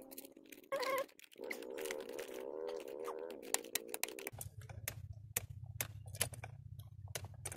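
Hard plastic dashboard trim being handled and pressed back into place: a run of sharp clicks and taps. Over the first half a cat gives a long, wavering meow, and a low steady hum starts about four seconds in.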